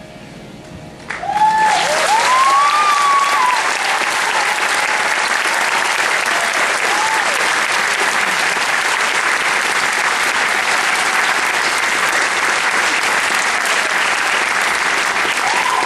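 A large audience applauding and cheering as a song ends: the last faint music gives way about a second in to sudden, loud, sustained clapping, with a few whoops over it at first.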